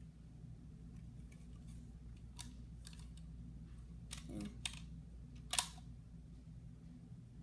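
Scattered plastic clicks and clacks of a Nerf blaster being handled and worked, the loudest a sharp click about five and a half seconds in.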